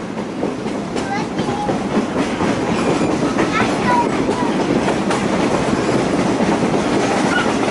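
Excursion train passenger car rolling along the track, its wheels rattling and clacking over the rails, the noise building a little over the first couple of seconds.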